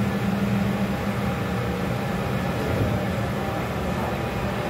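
Steady mechanical drone and rushing noise of ventilation machinery, with a low hum that weakens about a second in.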